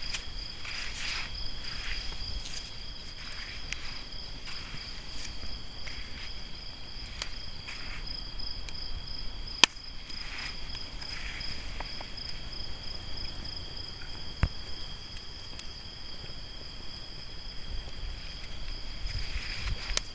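Night insects, crickets, trilling steadily at two high pitches, with scattered soft crackles from the campfire and one sharp snap about ten seconds in.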